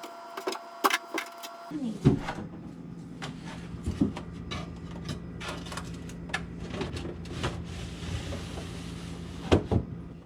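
Background music briefly at the start, then clicks and knocks of objects being handled and set down, with a steady low hum underneath. The loudest knocks come about two seconds in and again near the end.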